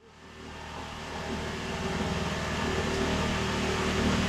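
A motor running with a steady hum, starting suddenly and growing louder over the first few seconds, then holding level.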